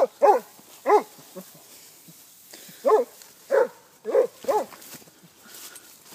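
Dog barking in short sharp barks: three in quick succession, a pause of about two seconds, then four more.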